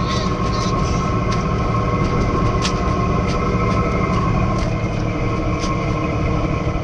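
Boat engine running steadily: a continuous low rumble with a steady whine on top, and scattered sharp knocks on board.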